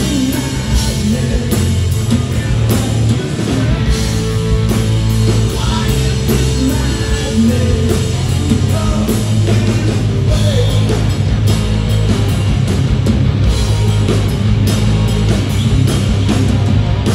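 Live hard rock band playing loud: distorted electric guitars, bass and a drum kit, with a man singing into a handheld microphone.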